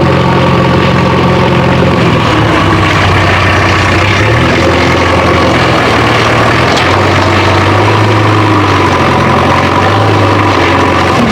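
Heavy engine running loudly, its pitch stepping up and down a few times as if revving between speeds.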